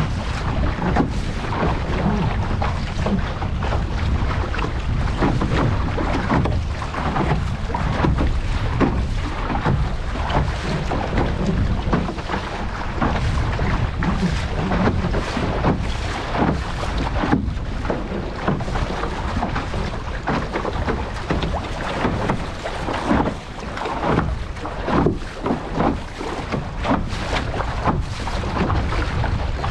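Strong wind buffeting the microphone over the rush and slap of water while an International Canoe sails, with frequent irregular gusts and splashes.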